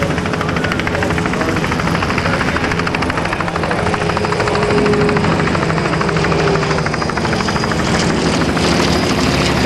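Single-engine propeller aerobatic plane flying overhead, its engine and propeller running steadily at power with a rapid pulsing buzz, swelling slightly about halfway through.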